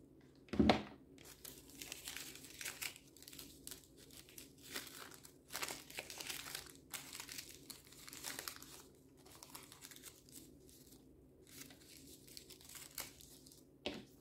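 Paper coffee filters being handled and crinkled, rustling in short irregular stretches. A single thump about half a second in is the loudest sound, with a smaller knock near the end.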